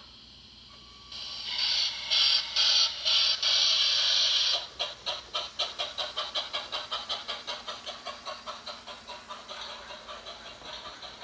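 Steam-locomotive sound effect from a Dallee sound unit in a LEGO model steam engine. About a second in comes a loud hiss of escaping steam in several pulses, then a quick, even run of chuffs that slowly grows softer.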